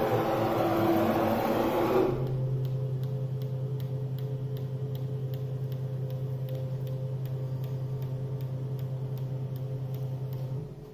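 CNC router's axis motors jogging the spindle head to the workpiece zero point. A louder rushing move for the first two seconds gives way to a steady low motor hum with faint regular ticks, which stops shortly before the end.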